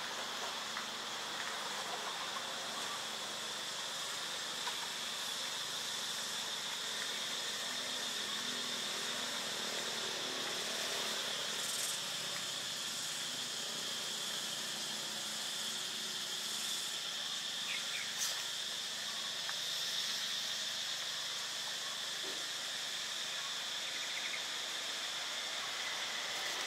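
Insects chirring in one continuous high note over a steady outdoor hiss, with a sharp click about two-thirds of the way through.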